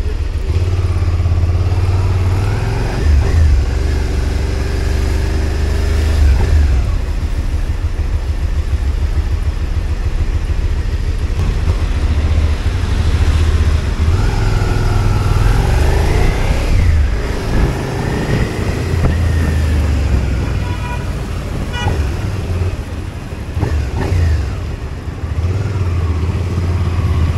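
Motorcycle being ridden, heard from a helmet-mounted camera: the engine pitch rises and falls several times as the rider opens and closes the throttle, over a steady low rumble.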